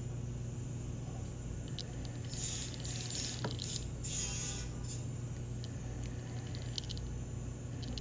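Fine twist drill bit in a jeweller's handpiece drilling pavé stone-seat holes into a gold chain link: faint, intermittent scratchy cuts over a steady low hum.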